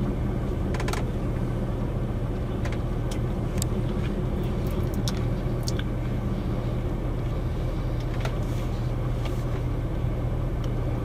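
Vehicle engine running steadily, heard from inside the cabin as a low, even drone, with scattered light ticks.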